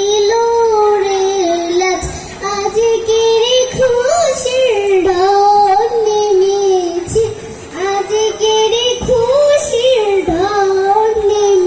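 A young girl singing solo into a microphone, a slow melody of long held notes that waver in pitch, with short breath pauses between phrases.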